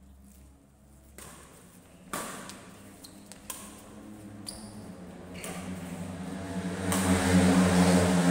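Badminton rackets striking a shuttlecock in a rally: sharp hits about a second apart. Near the end a louder, steady, engine-like drone with a low hum swells up.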